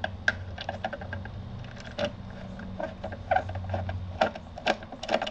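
Irregular light clicks, taps and scrapes of a lathe's cover panel and its screws being handled and fitted, over a low steady hum.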